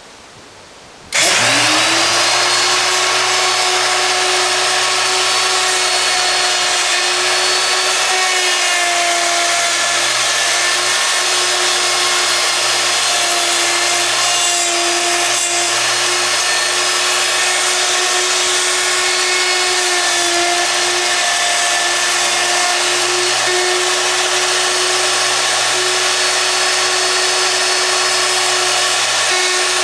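Electric router switched on about a second in, spinning up at once and then running steadily at full speed with a bearing-guided bit, cutting a hinge mortise into the edge of a door. Its pitch dips slightly now and then as it cuts.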